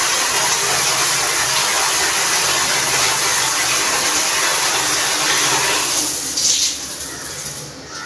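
Overhead shower running, its water falling in a steady hiss. From about six seconds in the flow thins to scattered drips and the sound fades.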